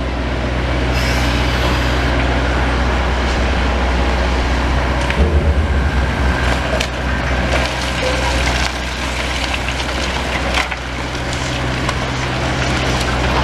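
Demolition excavator's engine running steadily while timber and rubble crack and splinter as it pulls the building apart, with a louder crunching stretch about five seconds in and a sharp crack near eleven seconds.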